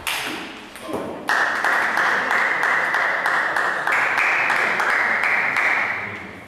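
Spectators applauding after a table tennis point. A dense patter of clapping swells sharply about a second in, holds steady, and fades near the end.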